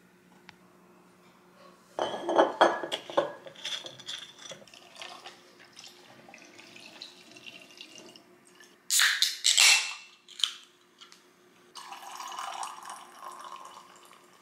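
Ice clinking in a tall glass about two seconds in, then Fernet-Branca poured over the ice. Around nine seconds a can of Diet Coke is cracked open with a sharp hiss, and near the end the Coke is poured in, fizzing over the ice.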